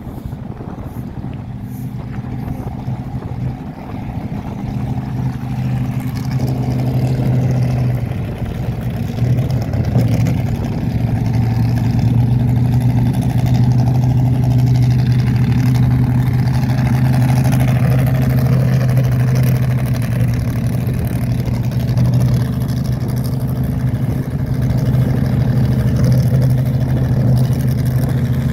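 Drag car's engine idling with a steady, low note, growing louder over the first ten seconds or so as the car comes up to the start line, then holding steady.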